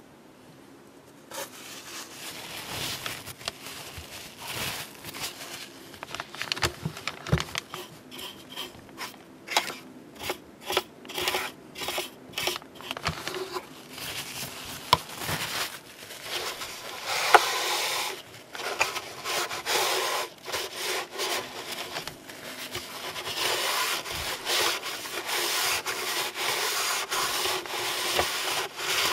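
Paint brush scrubbing weathering wash over the plastic deck of a ship model in quick, irregular scratchy strokes; from a little past halfway, a paper tissue rubbing over the surface, denser and louder, wiping the wash back.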